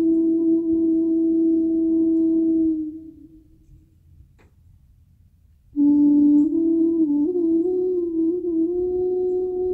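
Background music of long held, drone-like notes. The tone fades out about three seconds in, is gone for a few seconds, then returns suddenly and wavers a little in pitch.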